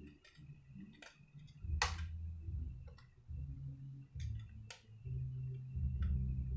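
Small sharp clicks and taps of hand work on an open laptop while an SSD is fitted into its bay: about six separate clicks, the loudest about two seconds in, over a low handling rumble.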